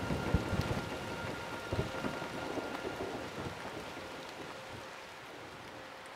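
Storm at sea from a film soundtrack heard through room speakers: rain and wind noise with a few low thuds in the first two seconds, slowly fading toward the end, over a faint held tone.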